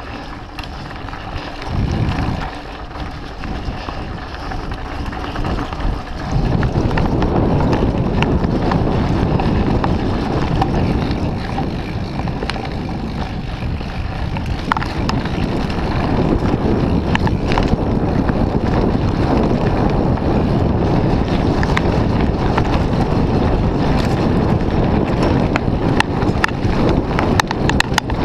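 Wind buffeting a GoPro's microphone on a fast mountain-bike descent, with the bike rattling and knocking over a rough dirt trail. It gets louder about six seconds in, and the knocks come thick and fast in the second half.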